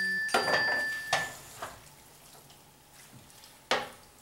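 Spoon and pan sounds as ground-beef chili with beans is stirred in a pan on the stove. A metallic clink about a third of a second in rings on for about a second, a couple of softer knocks follow, and there is a sharp knock near the end.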